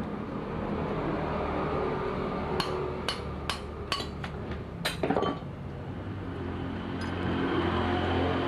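A quick run of about eight sharp metallic clinks and taps, a few seconds in, over a steady low engine hum that swells near the end.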